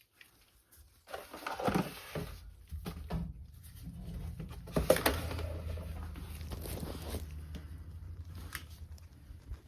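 Metal parts and tools being handled with knocks and scrapes, then a steady low mechanical hum from about four seconds in that fades near the end.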